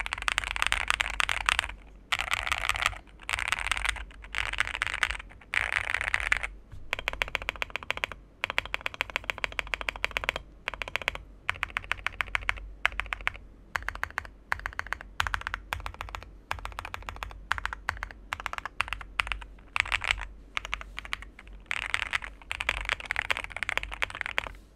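Typing on a Monsgeek M1W mechanical keyboard fitted with Akko Cream Yellow Pro switches, a deep, thocky key sound. Fast runs of keystrokes come in bursts separated by brief pauses, with more evenly spaced single key presses in the middle stretch.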